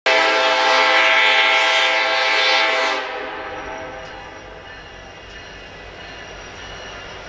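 Train horn sounding one long multi-tone chord for about three seconds, then dropping off abruptly into a slowly fading tail.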